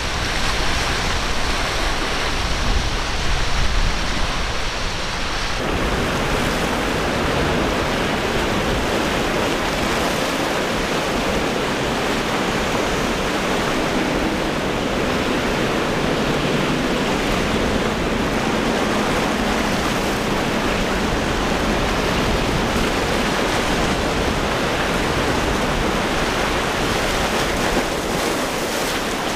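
Steady rushing noise of surf and churning water, with a low wind rumble on the microphone for the first few seconds. About six seconds in it shifts to a fuller, even rush.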